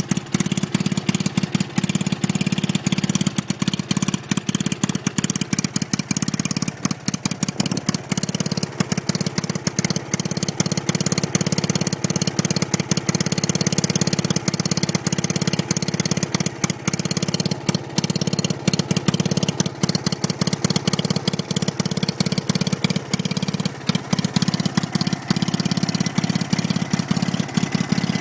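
Vintage Stuart Turner generating set's single-cylinder two-stroke engine running steadily with a rapid, even firing beat, its 50 V DC dynamo under load lighting a board of bulbs.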